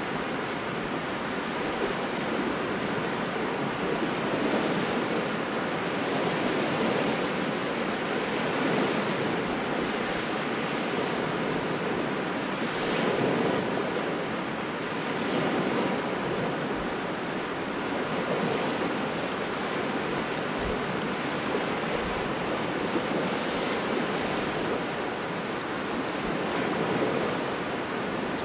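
Wind-driven waves washing onto a shore, with a cold wind blowing steadily over it. The surf swells and eases every few seconds.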